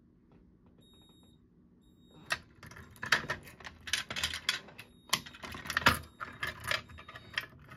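Keys jangling and a rapid run of sharp plastic and metal clicks and clacks as a key-reset Edwards SIGA-278 fire alarm pull station is unlocked, its front cover swung open and shut again. The clicking starts about two seconds in, after a quiet start.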